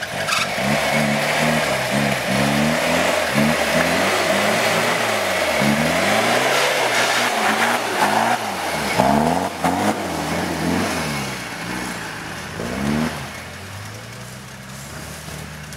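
Toyota Land Cruiser LJ70 engine revving hard and repeatedly up and down as the wheels spin and fling mud on a steep climb, with rough tyre and mud noise under the engine. About thirteen seconds in, the engine sound drops to a lower, quieter level.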